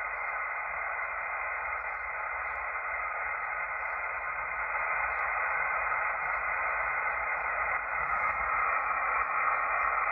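Kenwood TS-440S HF transceiver's speaker giving steady hiss of band static, squeezed into a narrow voice-width passband, as it is tuned across the 12-metre band in upper sideband. No station comes through: the band is blacked out by a geomagnetic storm.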